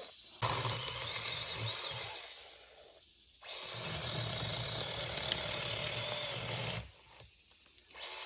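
Small chainsaw cutting a tree branch, running in three bursts that stop sharply, about three seconds in and again about seven seconds in.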